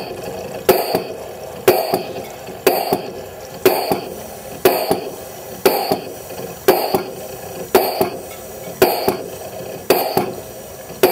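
Air-driven intensifier pump of an LM10 Microfluidizer high-pressure homogenizer cycling: a sharp knock and a short hiss of air on every plunger stroke, evenly about once a second. It is running on a throttled air feed, too low to reach its set process pressure.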